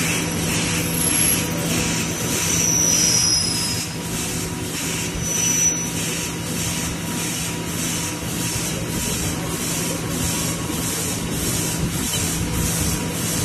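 Automatic CNC double-head lathe running while machining copper air-conditioner nuts: a steady low machine hum under a high hiss that pulses about twice a second, with a few brief high squeals in the first few seconds.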